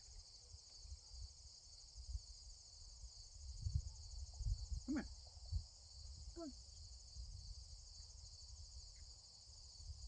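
A chorus of crickets chirring in a steady, high-pitched trill, with low rumbles now and then.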